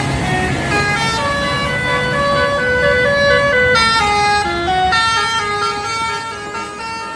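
Basuri multi-tone 'telolet' bus horn playing a tune of short held notes that step up and down in pitch, with a bus engine running underneath. The horn grows quieter near the end.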